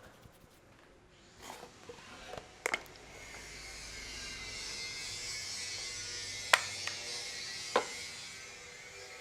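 Head-massage sounds: hands rubbing over hair and scalp make a hiss that builds for a few seconds and then eases. Three sharp cracks break through it, one before the rubbing starts and two close together later.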